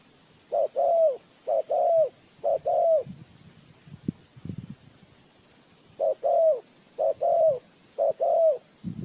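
Spotted dove cooing: two series of three two-note coos, each a short note followed by a longer drooping one. A few faint low rustles fall in the pause between the series.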